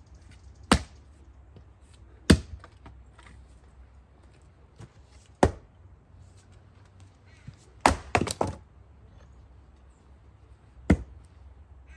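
Axe chopping into a knotty firewood round: five sharp chops a few seconds apart, with a quick run of knocks just after the fourth, about eight seconds in.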